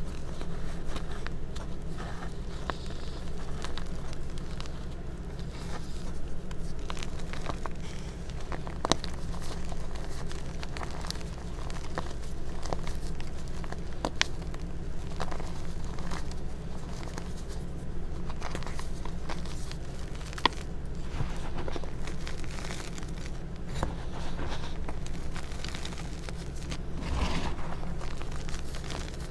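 Hands crushing reformed gym chalk blocks in a tub of loose chalk powder: steady crumbly crunching and crackling, with sharp snaps as pieces break.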